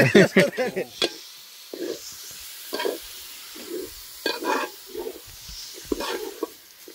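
Raw chicken pieces being stirred with a metal ladle into spice masala frying in oil in a metal pot: a string of short scraping strokes, about two a second, over a faint steady sizzle.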